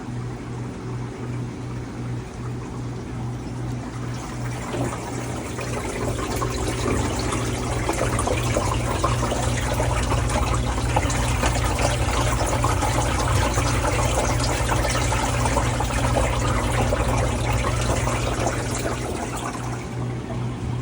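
Under-counter ice machine running: a steady low motor hum with water rushing and trickling inside it, building up about five seconds in and easing off near the end.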